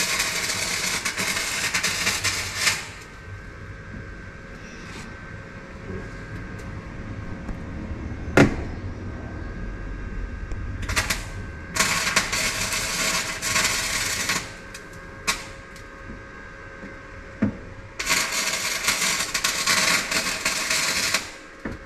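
Arc welding in three short runs, each a few seconds of steady crackling hiss with pauses between: a patch panel being welded into a car firewall. A sharp click sounds between the first and second runs.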